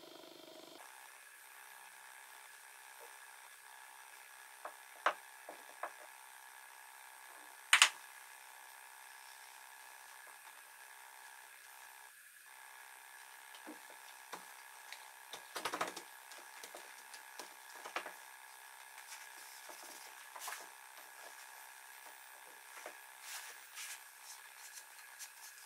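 Scattered light wooden clicks and knocks with brief rubbing as softwood joint pieces are handled, waxed and slid together, over a faint steady hum. The sharpest knock comes about eight seconds in, with a run of smaller knocks in the second half.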